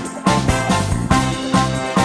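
Upbeat instrumental background music with a steady beat of about four strokes a second.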